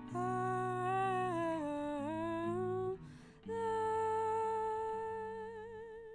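A woman singing two long held notes over acoustic guitar. The first note bends down and back up; the second holds steady with vibrato for about three seconds.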